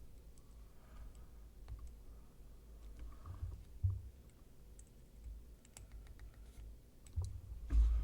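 Scattered light clicks and soft knocks from small objects being handled, with a couple of duller low thumps, the loudest near the end.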